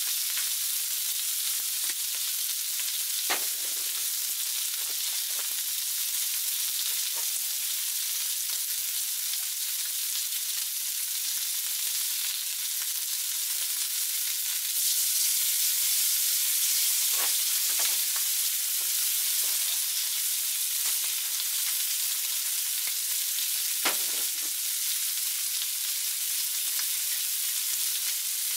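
Thick beef steak and marinated pork slices sizzling on a hot steel griddle plate, a steady high hiss. It gets louder about halfway through, when the beef is turned over with tongs onto its raw side, and a few sharp clicks break through.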